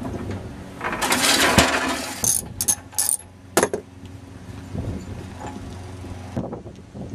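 Handling at a Briggs & Stratton lawnmower engine's spark plug as the plug is taken out: a rustling scrape about a second in, then a handful of sharp metallic clicks.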